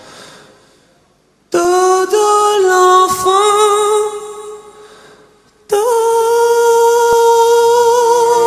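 A male singer's high voice holds a long sung note without words after a moment of near silence, wavering slightly as it fades away. A second long held note starts suddenly near six seconds in and stays steady, and a soft orchestral accompaniment comes in beneath it near the end.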